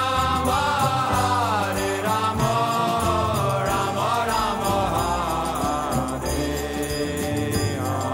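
A woman singing a devotional aarti hymn over steady musical accompaniment, with a small hand bell ringing repeatedly.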